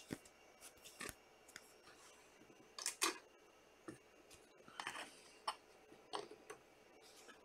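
Trading cards being handled and set into clear plastic card stands: faint scattered clicks, taps and light rustles, with two sharper clicks close together about three seconds in.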